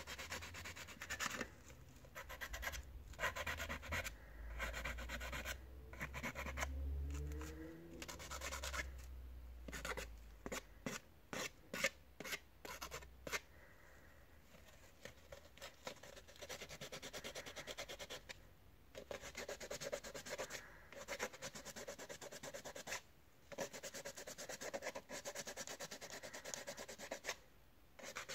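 Hand sanding of a Wahl Sterling 2 Plus trimmer's white housing with a sheet of sandpaper: rasping back-and-forth strokes, with a quick run of short strokes about ten seconds in and longer, steadier strokes later.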